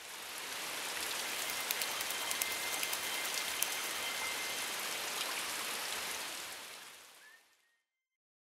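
A steady rain-like hiss with fine crackles. It fades in at the start and fades out about seven seconds in.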